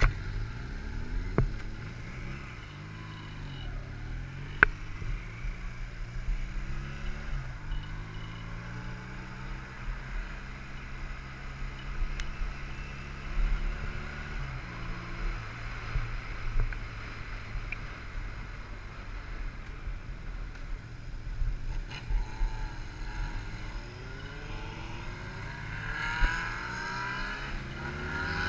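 Motorcycle engine running under way, its pitch moving up and down with the throttle and rising near the end as it accelerates, over a low rumble of wind on the microphone. A couple of sharp clicks cut through it.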